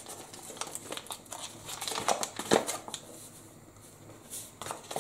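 Faint rustling and scattered light clicks of a spice packet being handled, with granulated garlic shaken from it into a plastic mixing bowl.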